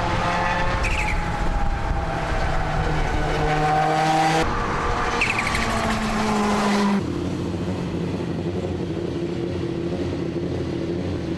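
Suzuki SX4 WRC rally car's turbocharged four-cylinder engine running hard on a tarmac track, its pitch sliding down and up through the corners. The sound changes abruptly twice, about four and a half and seven seconds in, and the last stretch is steadier.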